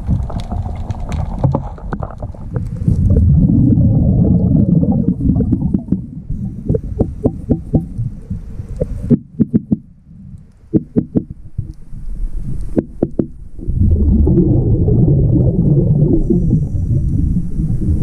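A run of very light, sharp taps from a diver's tool on the transducer's fairing block under the hull. The taps ring hard and sharp, not dull, which is the sign the fitting is sound. The taps come in the middle, between long stretches of rumbling from the diver's exhaled bubbles.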